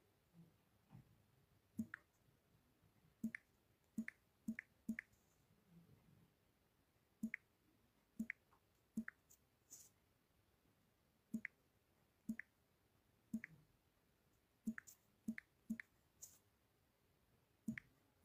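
Quiet room with short, sharp clicks or taps at irregular intervals, roughly one a second, some coming in quick pairs.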